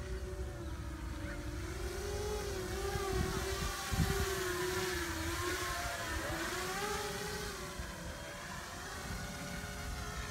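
Eachine V-Tail 210 racing drone's brushless motors and propellers buzzing in flight, the pitch wavering up and down as the throttle changes. Wind rumbles on the microphone throughout, with a low bump about four seconds in.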